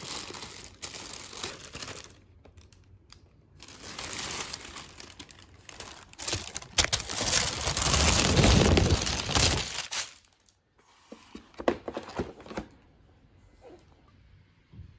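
Thin plastic carrier bag rustling and crinkling as it is handled and food boxes are pulled out of it, in uneven bursts. It is loudest a few seconds in to about two-thirds through, when the bag is pressed close to the microphone, and quieter afterwards.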